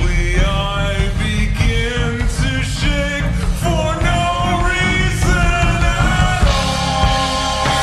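Music from a slowed-down song: a long, held melody line moving in steps over a heavy bass.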